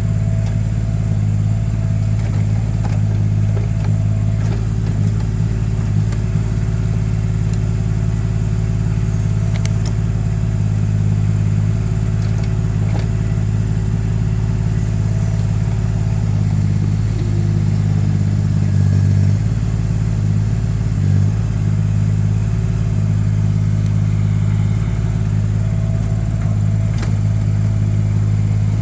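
Mini excavator engine running steadily, its note shifting briefly twice about two-thirds of the way through, with a few light clicks.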